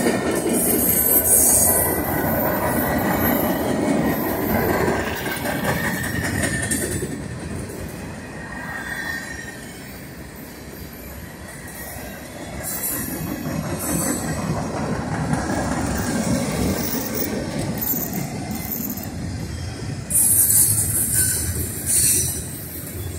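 Freight cars rolling past on jointed rail, a steady rumble with clacking wheels. High-pitched wheel squeal comes and goes, strongest at the start and again near the end.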